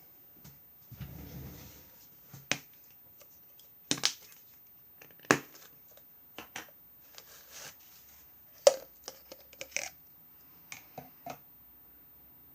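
Small plastic pill box and sellotape being handled and opened by hand: scattered sharp clicks and taps with light rustling between them.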